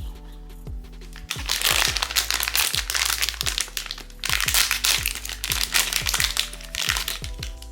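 Blind-box packaging being crinkled and crackled by hand in two long spells, over background music with a deep, falling bass beat.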